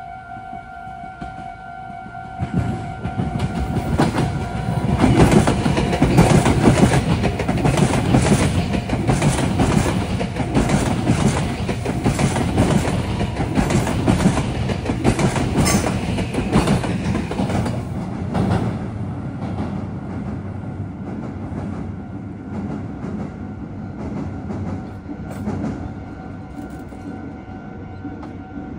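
A Meitetsu electric train passing over the junction, its wheels clacking over the rail joints and points, building up over about three seconds, loudest in the first half and fading to a rumble. A steady high tone is heard before the train arrives and again after it has passed.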